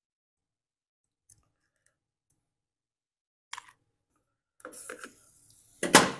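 A couple of faint clicks of small parts being handled, then from about four and a half seconds in the scrape and shuffle of a chainsaw engine block being turned over on a metal workbench, ending in one loud knock as it is set down.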